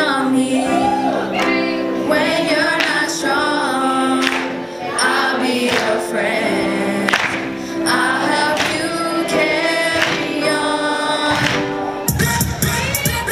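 A mixed group of young voices singing together through microphones, holding long notes in harmony. About twelve seconds in it cuts abruptly to a beat-driven dance track.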